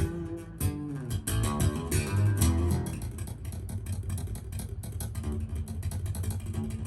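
Recorded music with guitar, bass and a steady percussive beat, played through ProAc Studio 140 MK2 loudspeakers.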